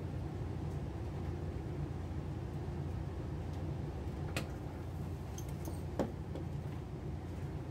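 A steady low hum throughout, with two short clicks about four and six seconds in, the second louder, from the steel wing dividers and the leather being handled on the wooden bench.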